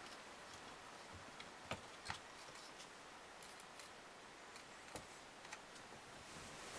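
Near silence with a handful of faint clicks and taps from a Laserdisc player's optical pickup and metal guide rod being slid and fitted by hand.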